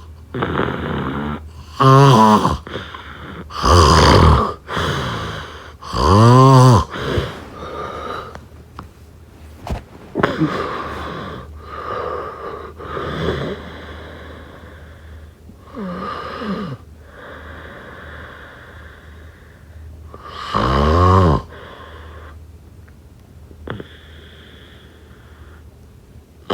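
Snoring: a run of loud snores about two seconds apart, then several quieter snoring breaths, and another loud snore about three-quarters of the way through.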